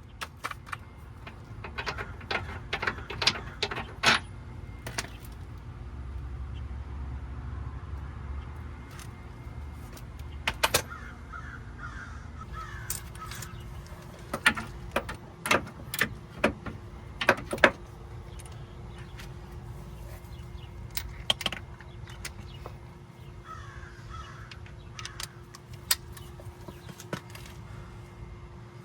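Sharp metallic clanks and clicks of hand tools on the van's suspension parts, coming in two clusters, with crows cawing a few times in the background.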